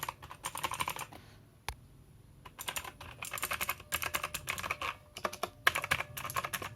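Keystrokes typed on a Machenike K7 wireless keyboard, confirming that it types over its Bluetooth connection. A quick run of keystrokes, a pause of about two seconds with a single keystroke, then steady typing again to the end.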